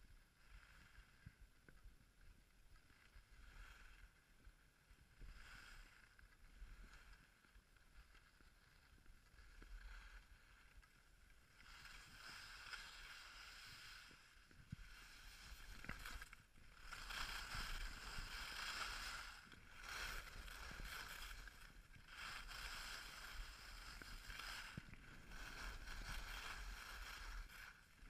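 Faint hiss and scrape of skis sliding over groomed snow, coming in swells, louder and more continuous from about twelve seconds in.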